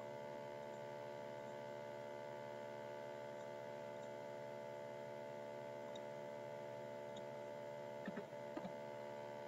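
Steady electrical mains hum picked up in the recording, a low buzz made of many evenly spaced steady tones. A couple of faint short sounds come near the end.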